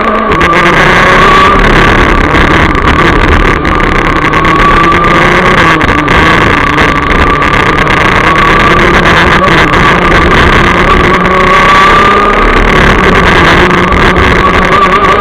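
Rotax DD2 racing kart's 125 cc two-stroke engine running hard at high revs, heard very loud and close from a camera mounted on the kart. Its pitch rises and falls a little as the driver eases off and accelerates again.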